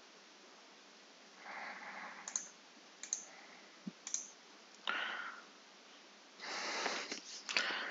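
A handful of sharp computer-mouse clicks, spaced about a second apart, with a few soft rushes of breath close to the microphone between them.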